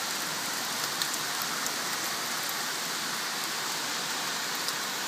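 Heavy rain pouring steadily, a dense even hiss with a few scattered sharp ticks of drops striking close by.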